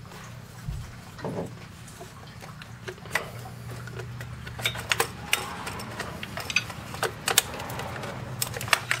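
Irregular plastic clicks and small rattles as a PCV hose and its quick-disconnect fitting are worked loose by hand in an engine bay. A few clicks come early, then they grow frequent about three seconds in.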